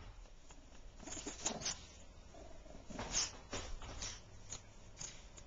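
Chihuahua worrying a large plush toy on a tile floor: irregular scuffles, rustles and claw taps, with a few short low growls.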